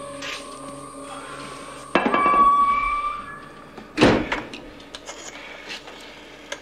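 Low held music tones, a sudden swell about two seconds in, and a loud thud about four seconds in that dies away, followed by light clicks and knocks as a wall telephone handset is lifted.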